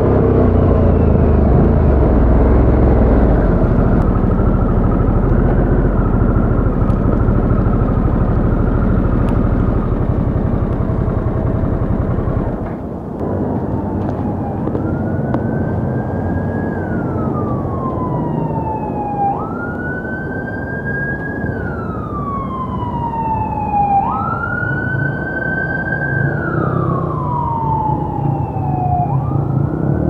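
Harley-Davidson Sportster S's Revolution Max 1250 V-twin on its stock exhaust running under way; its rumble drops off sharply about halfway through. Then an emergency-vehicle siren wails four times, each wail rising quickly and then sliding slowly down, over the engine's lower, steady sound.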